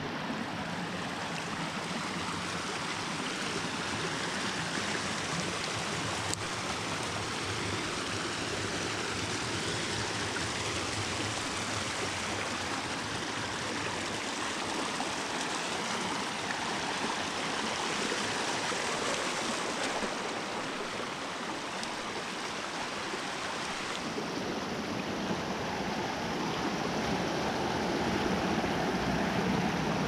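Small rocky stream running over stones and little cascades in a steady rush, getting a little louder near the end as a small waterfall comes close.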